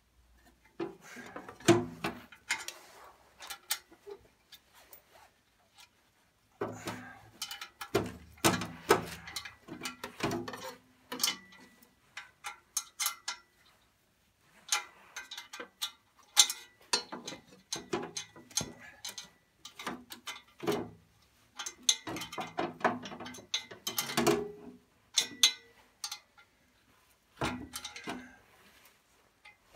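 Irregular bursts of metallic clicking and clanking, with short pauses between them, as the Store 404 tractor's sheet-metal panel and bolts are worked back into place with hand tools.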